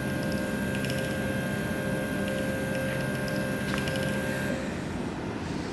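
Stepper motors of a CNC router whining steadily as the Z axis jogs the spindle down, with the whine ending about four and a half seconds in.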